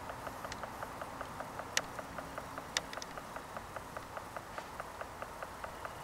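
Red-bellied woodpecker tapping at tree bark: a steady run of light taps, about three to four a second, with two sharper, louder knocks in the middle.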